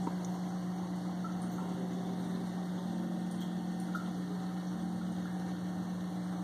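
Steady hum of a running aquarium pump with an even hiss of circulating water.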